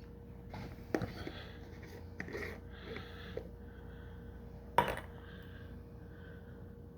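Glass fermentation jars and their lids being handled: light clinks and taps, with one sharp click about five seconds in.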